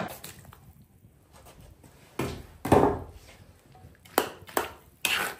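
Kitchen clatter: two heavy knocks about two seconds in, then several sharp clinks of a metal spatula against a wok as rice and cured sausage are stirred over a wood fire.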